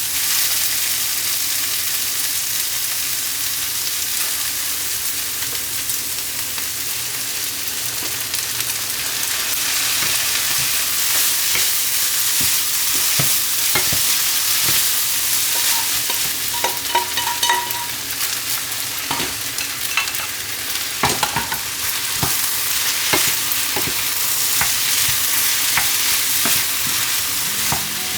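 Food sizzling in a hot frying pan while it is stirred, a steady hiss with scattered clicks and scrapes of a utensil against the pan in the second half.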